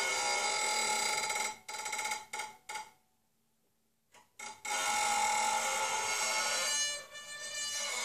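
Violin bow drawn slowly across the higher strings of a concert harp, giving a creaky, squeaking tone with many overtones, like a door squeak. About a second and a half in the tone stutters and breaks up, stops briefly, then returns as long, steady bowed squeaks.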